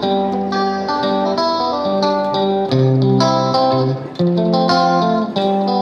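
Background music: a plucked guitar melody, several notes a second over low sustained bass notes.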